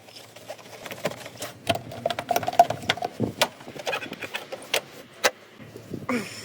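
A run of sharp clicks and knocks from parts and tools being handled during a filter change, with a small motor's whirring tone for about a second and a half near the middle.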